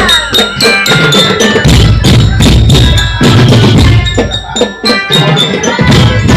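Loud percussion music: drums pounding out a busy rhythm under rapidly struck, ringing pitched bells or gongs, with the drums dropping out briefly twice.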